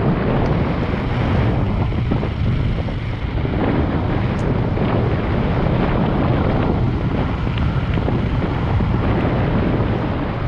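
Steady wind buffeting the action camera's microphone while riding a mountain bike downhill at close to 40 km/h on a paved road.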